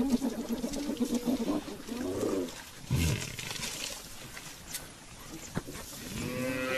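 Cape buffalo and spotted hyenas calling: wavering, bleat-like calls, and a short low grunt about three seconds in.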